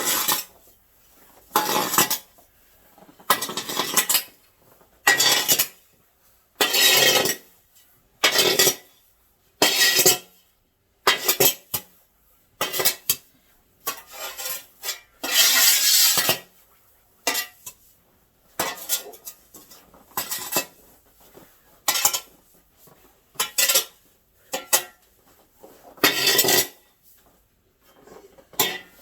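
Snow shovel scraping and pushing snow across a porch floor in repeated strokes, about one every one and a half seconds, with one longer scrape about halfway through.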